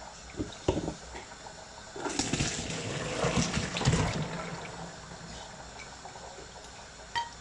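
Hot vegetable cooking water poured from a saucepan through a plastic colander into a jug, splashing from about two seconds in and trailing off after a few seconds as the boiled veg is drained. A couple of light knocks come just before the pour.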